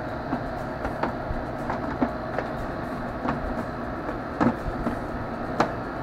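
Arctic King WPPD14CR8N portable air conditioner running steadily, with a few sharp plastic clicks and knocks as its rear grille panel is handled and pushed back into place.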